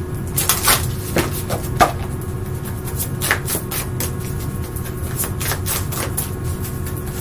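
Oracle card deck being shuffled by hand: a run of irregular quick flicks and taps of the cards.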